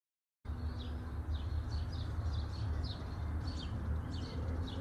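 Outdoor ambience of small birds chirping, many short quick calls, over a low steady rumble. It cuts in abruptly about half a second in, after silence.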